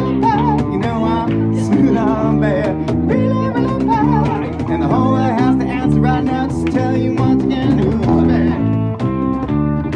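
A band playing guitar-led music, with steady chords, a moving low line and a wavering melody above them.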